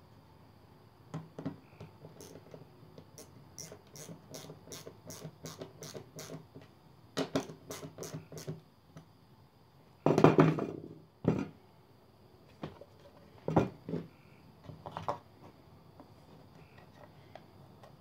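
Hand screwdriver driving screws into a plywood disc to fasten small metal support wheels: a run of quick, even clicks, about three a second. About ten seconds in comes a loud, short rustling scrape, the loudest sound here, followed by a few knocks of parts set down on the wood.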